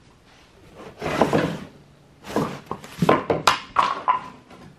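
A large cardboard box being lifted up and off a generator on a wooden pallet: cardboard scraping and rustling, one longer scrape about a second in, then a run of shorter scrapes and knocks.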